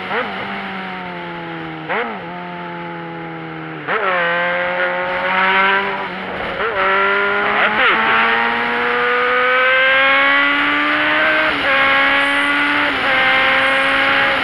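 A motor vehicle's engine pulls under load, its pitch dropping sharply about 2 and 4 seconds in, then climbing slowly and steadily for several seconds, with smaller dips near the end, as it changes gear while overtaking. Wind and road hiss run underneath.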